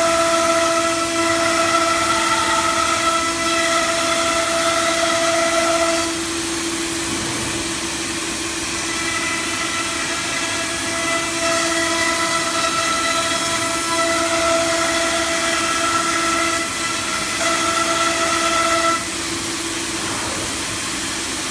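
Wood CNC router running with a steady high-pitched spindle whine over machine noise. The whine is strongest for about the first six seconds, eases, comes back strongly from about nine seconds in, and drops again near the end.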